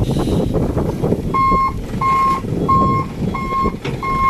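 Dump truck's reversing alarm beeping steadily, about one and a half beeps a second, starting a little over a second in, over the truck's engine running as it backs up with its bed raised.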